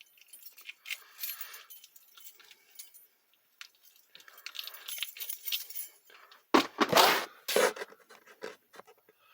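A small padlock and its tiny key being handled, with light metal clinks and rattles. Then comes a cluster of loud knocks about two-thirds of the way through.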